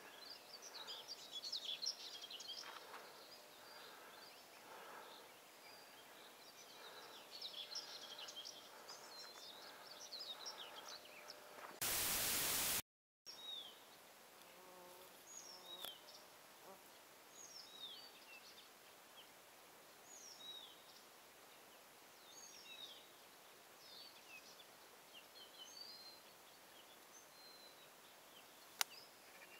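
Faint birdsong: many birds chirping densely together for the first dozen seconds, then, after a loud burst of hiss and a brief dropout at a cut about twelve seconds in, a single bird repeating short downward-slurred calls every second or two. A sharp click near the end.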